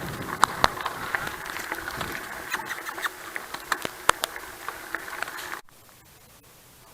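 Bicycle rolling over a rough track: wind and rolling hiss with many scattered clicks and rattles, cutting off abruptly to a quiet hiss about five and a half seconds in.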